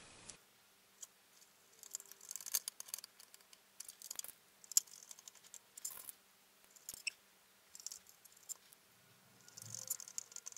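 Faint, irregular scratchy clicks and rattles of a small screwdriver turning tiny screws into a plastic model-engine kit's sump pan, with small screws rattling in a plastic tub.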